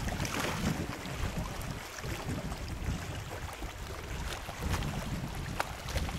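Wind buffeting the microphone over water lapping against a small fishing boat, with a few faint scattered clicks.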